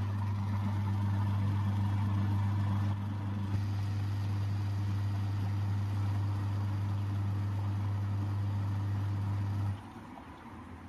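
Semi-automatic washing machine's wash motor running with a steady low hum, cutting out near the end. It is turning normally after its weak run capacitor, the cause of the no-turn fault, was replaced.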